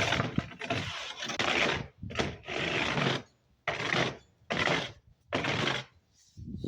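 Snow crunching and scraping in a run of separate strokes, a long one at first and then about five shorter ones roughly a second apart.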